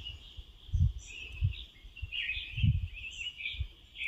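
Birds chirping and twittering without a break. Four short low bumps of microphone noise are louder than the birdsong.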